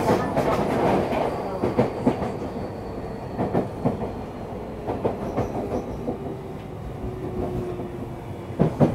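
Onboard running sound of a Tokyu 3000 series electric train: steady wheel-and-rail rumble with irregular clicks over rail joints. The rumble fades and a faint motor whine falls in pitch, as when the train slows.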